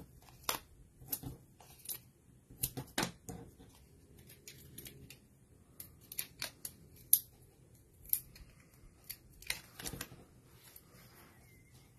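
Paper-craft handling: light irregular clicks, ticks and paper rustles as foam adhesive dimensionals are peeled from their backing sheet and pressed onto a cardstock tag, with a few sharper taps on the cutting mat.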